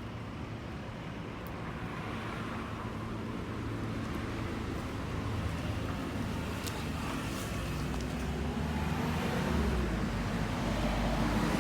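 A heavy engine running steadily, growing gradually louder.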